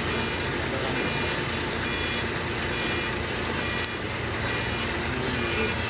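Heavy diesel machinery engine running steadily, with faint high steady tones above the rumble.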